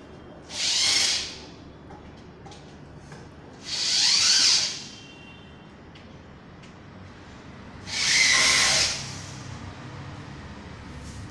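Electric drill run in three short bursts of about a second each, working on a wooden bed frame.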